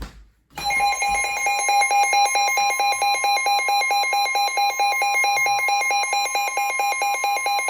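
Weather radio alert: a loud, rapid pulsing alarm beep from a Midland WR-100 weather radio over the steady NOAA Weather Radio warning alarm tone, starting about half a second in. It signals an incoming flood warning.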